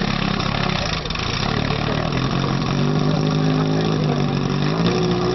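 Portable firefighting pump's engine running steadily, its pitch dipping about a second in and then rising in two steps as it is revved up.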